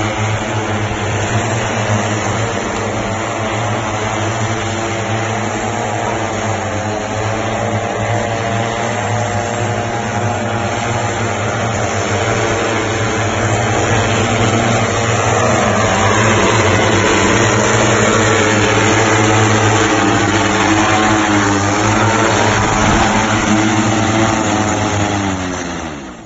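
Propellers of a manned multirotor hoverbike hovering and flying, a loud steady buzz made of many stacked tones that grows louder partway through. Near the end the rotors wind down in pitch and fade out as it lands.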